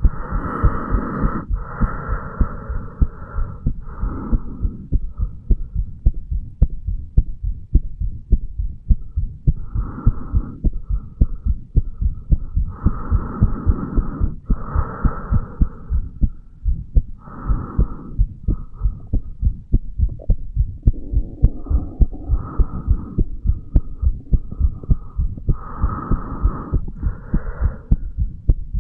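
Human heartbeat heard through the chest wall over the mitral valve area: a steady run of low thumps, beat after beat, with a higher hiss that comes and goes.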